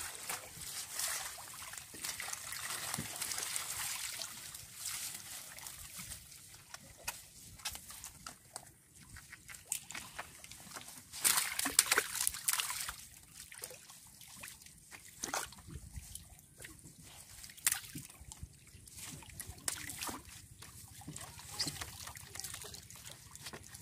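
Water trickling and dripping off a raised bamboo-framed lift net, with splashes from the mesh; the loudest burst of splashing comes about halfway through, as the net comes up holding small fish.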